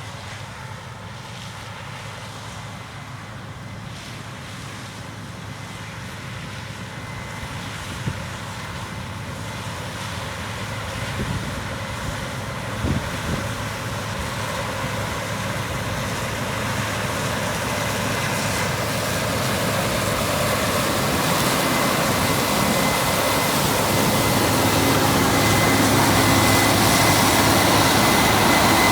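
Case IH 8120 Axial-Flow combine running while harvesting corn, its drone growing steadily louder, with a thin high steady whine coming in over the last several seconds.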